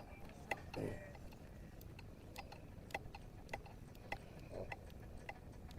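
Sharp, light ticks and taps at uneven intervals, roughly one every half second to second, over faint steady background noise, with two short soft low sounds, one about a second in and one near the end.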